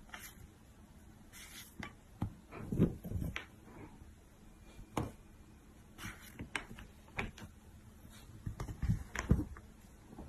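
Scattered soft taps and paper rustles of a pen and notebook pages being pawed by a cat, a few light knocks a second in bursts.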